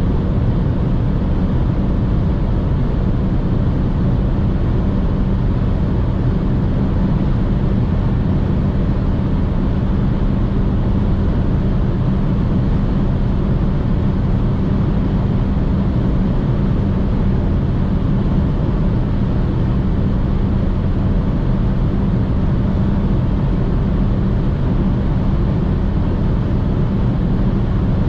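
Inside the cabin of a 2006 BMW 118i: its 2.0-litre four-cylinder petrol engine running steadily at high revs at about 200 km/h, under a constant rush of wind and road noise. It stays level throughout, with no gear change.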